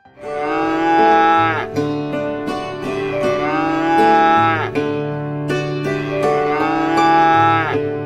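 Cattle mooing: three long moos, each rising then falling in pitch, over background music.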